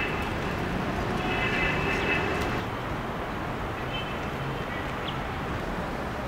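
Steady city street ambience: a continuous wash of traffic noise, with faint higher-pitched tones about a second and a half in and again around four seconds.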